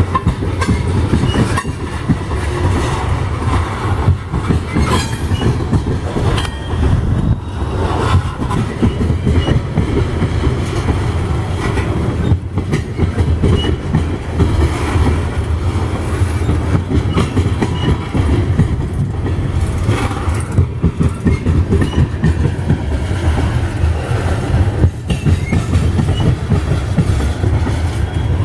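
Coal gondola cars of a freight train rolling past close by: a steady heavy rumble of steel wheels on rail, with repeated clacks as the wheels cross rail joints and a few brief faint wheel squeaks.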